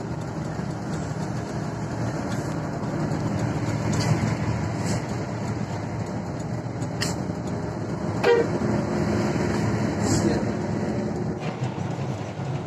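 Intercity coach driving at speed, heard from inside the cabin: a steady engine hum and road rumble with a few short knocks and rattles.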